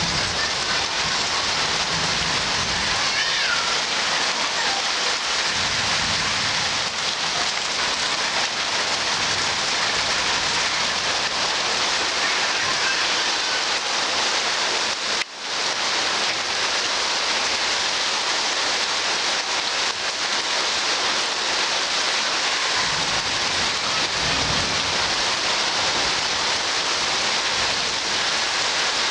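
A heavy rain shower: a steady, dense hiss of rain falling on surfaces, briefly cutting out about halfway through.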